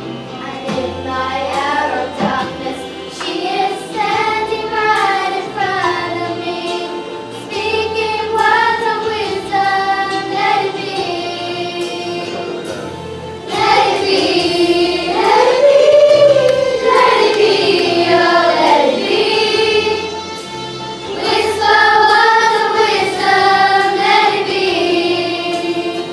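A group of children singing a song together, with a steady accompaniment of low notes underneath. The singing gets louder about halfway through.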